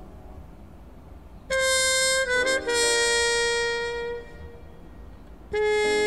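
Background music: a melody of long held notes, quiet at first, coming in about a second and a half in and again near the end.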